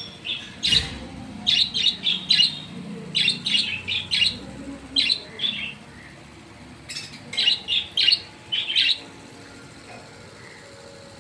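Budgerigars chirping: quick runs of short, sharp calls, a first flurry, a pause of about a second, then a second flurry.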